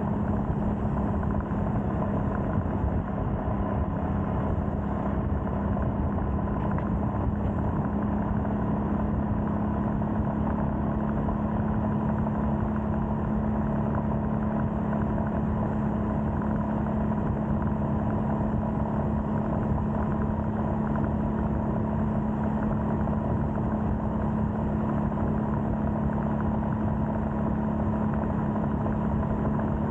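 Royal Enfield Scram 411's 411 cc single-cylinder engine running at a steady cruising speed under way. The engine note holds one constant pitch throughout, with no gear changes or revving.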